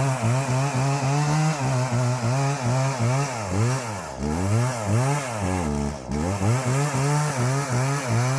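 Gas chainsaw cutting dead juniper wood. Its engine pitch rises and dips about twice a second as the chain bites into the wood and frees, and drops briefly toward idle about six seconds in.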